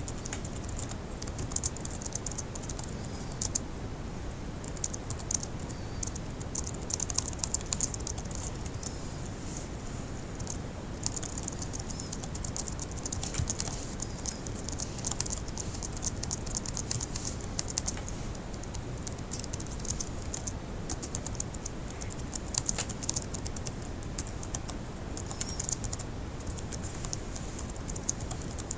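Fast typing on a laptop keyboard: rapid runs of light key clicks with brief pauses between bursts, over a steady low background hiss.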